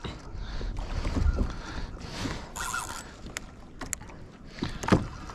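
Water slapping against a small boat's hull, with wind rumbling on the microphone. A brief hiss a little before the middle and a few sharp knocks or clicks in the second half, the loudest near the end.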